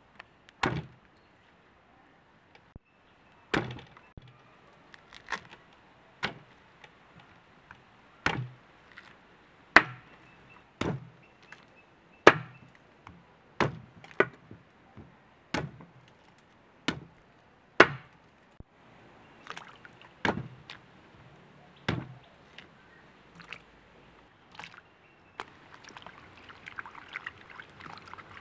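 Knife chopping with single, evenly spaced strokes, each landing with a sharp knock and a low thud, about one every second to second and a half. Near the end the strokes die away into a soft rustling.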